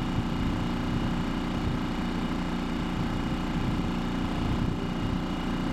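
Small outboard motor running at a steady throttle, pushing a sailboat along under power, with an even engine note.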